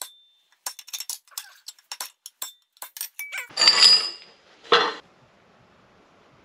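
Metal hand tools clinking and tapping on an aluminium LS engine timing cover while its front crankshaft seal is being replaced. A quick run of light metallic clinks leads into a louder rattling clatter about halfway through, then one sharp knock.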